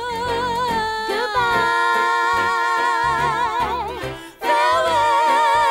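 Musical-theatre song: a singer holds long notes with vibrato over instrumental backing. There is a brief break about four seconds in, then a loud held note.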